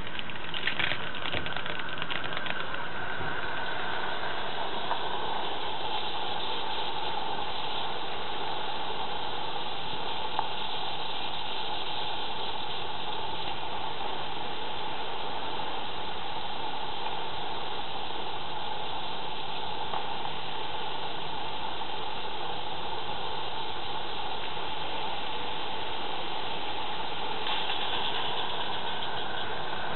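Roundhouse 'Billy' gas-fired live-steam miniature locomotive hissing steadily as it vents steam, with a few faint clicks in the first few seconds.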